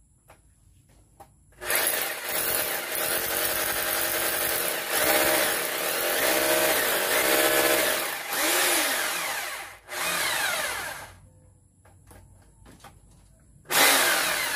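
Power drill boring into a masonry wall: one long run of about six seconds, then two short bursts, then another starting near the end. The motor's pitch dips and recovers as it loads up.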